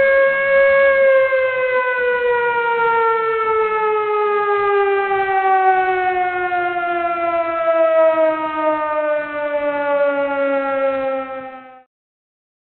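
Air-raid (civil defence) siren sounding one long, loud wail. It holds its pitch briefly, then slowly falls as it winds down, and cuts off suddenly near the end.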